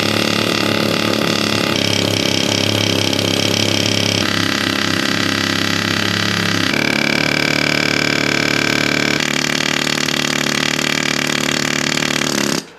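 Pneumatic air chisel (air hammer) hammering continuously on a steel upper control arm to knock the parts loose. Its pitch shifts in steps several times, and it cuts off suddenly near the end.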